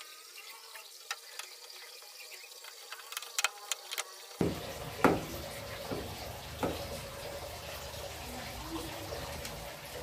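Sharp clicks and taps of a screwdriver working the screws on the plastic cabinet of a Sanyo top-loading washing machine, over a steady background hiss.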